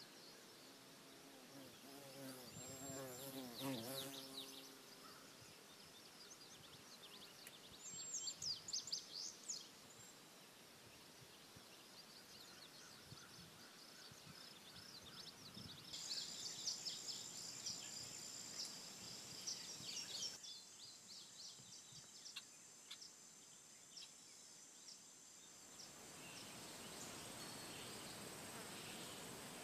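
Faint outdoor woodland ambience: scattered short bird chirps and a steady high insect trill that comes in about halfway and again near the end. A brief low wavering sound comes a few seconds in.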